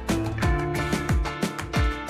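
Background music with a steady beat and bass notes that drop in pitch.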